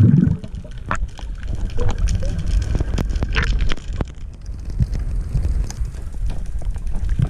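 Underwater sound picked up through a diver's camera housing: a steady low rumble of moving water with scattered sharp clicks and knocks.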